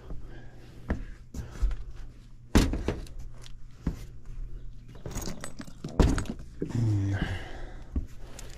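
Knocks, thuds and rattles from someone clambering across loose attic joists and 2x4s and handling tools, with two heavier thumps about two and a half and six seconds in. There is a short grunt-like voice sound near seven seconds, and a steady low hum underneath.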